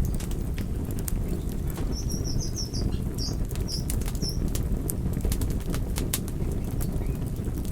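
Campfire burning, its flames making a steady low fluttering rumble with frequent sharp crackles and pops from the burning wood. A few short high chirps come in about two seconds in and stop after about two more seconds.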